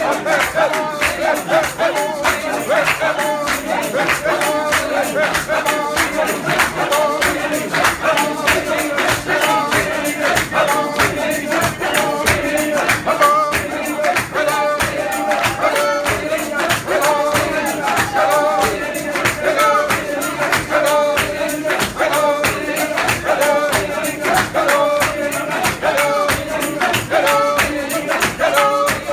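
A congregation singing a hymn in unison to a steady, fast beat of tambourines.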